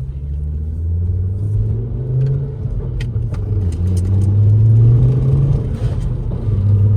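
Volvo V50's engine running loud and low, its pitch rising and falling slowly as the car is driven and accelerated.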